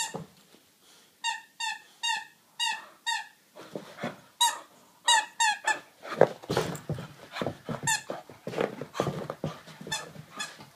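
A squeaky dog toy squeaked over and over as a wheaten terrier puppy bites it: about a dozen short squeaks, each falling in pitch, first a quick run of five about two a second, then more in clusters, with noisy rustling and scuffling between them.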